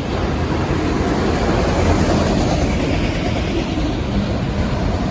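Freight cars of a passing train rolling by: a steady rumble of wheels on the rails.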